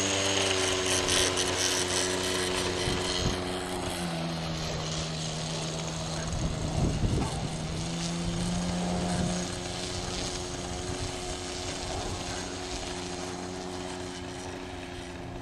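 OS FX .61 two-stroke glow engine of a radio-controlled model plane running steadily while the plane taxis. Its pitch dips about four seconds in and comes back up a little past halfway, and it grows fainter as the plane moves away.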